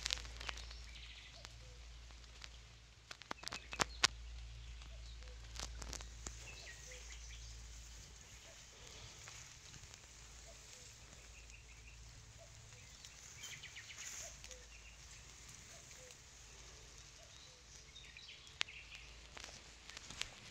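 Small forest stream running steadily, with birds chirping now and then. A few sharp knocks come about three to four seconds in.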